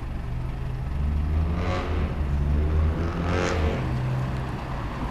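Alexander Dennis Enviro400H hybrid double-decker bus with BAE Systems drive pulling away from the stop: a steady low engine drone, a little louder in the middle, with two brief swells about two and three and a half seconds in.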